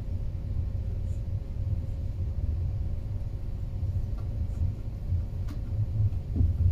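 Steady low rumble of a passenger train running at speed, heard from inside the carriage, with a faint steady hum and a few light clicks.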